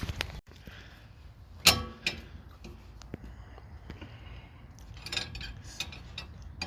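One sharp metal clank with a short ringing tail about two seconds in, then a lighter knock and a few small metallic clinks, from tools striking a wheel hub whose studs are seized.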